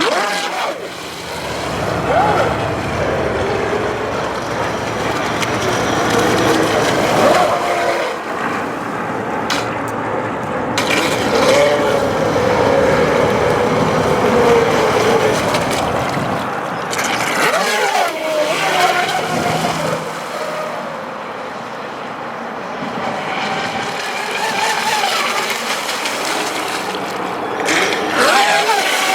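Battery-powered Pro Boat Miss Geico RC racing boat running on a river: its motor whine rises and falls in pitch as the throttle changes, over a steady rush of moving water.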